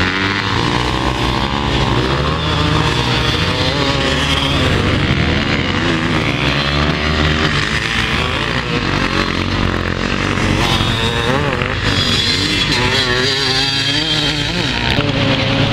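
Several motocross bikes' engines revving as the bikes ride past on a sand track, several at once, each engine's pitch rising and falling with the throttle.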